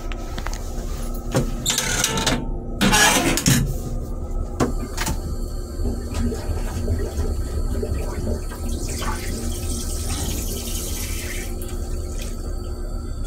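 Stainless-steel railcar toilet flushing: a loud rush about two to four seconds in, then a softer hiss later as blue flush fluid fills the bowl, over a steady low rumble.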